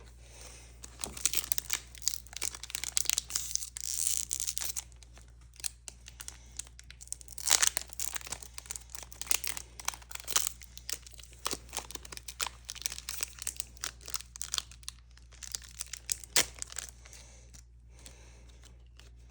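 Foil wrapper of a Pokémon booster pack crinkling and being torn open, a dense run of sharp crackles, then another run a few seconds later, thinning out towards the end as the cards are handled.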